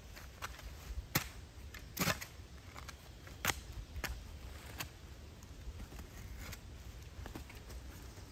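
Small folding shovel chopping and scraping into forest soil and roots: a string of sharp, separate strikes in the first five seconds, then fewer and quieter.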